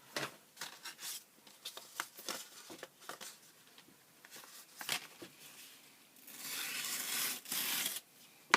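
Packaging of a small plastic model kit being handled and torn open: scattered crinkles and taps, then a steady tearing rip of about two seconds near the end, followed by a sharp click.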